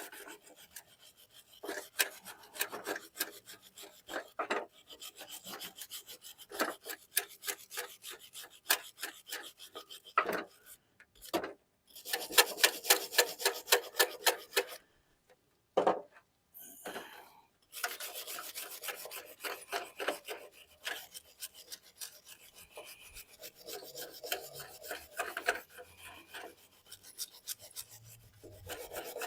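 Steel wire brush scrubbing the pad-clip seats of a brake caliper bracket clean of rust and grime, in runs of quick back-and-forth strokes with a couple of brief pauses.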